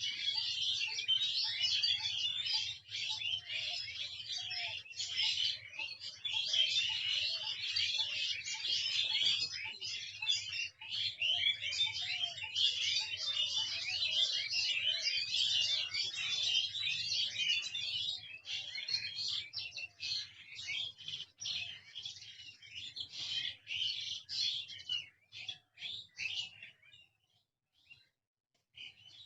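A chorus of many songbirds chirping and twittering densely and continuously. The chirping thins out about three-quarters of the way through, almost stops briefly near the end, then starts again.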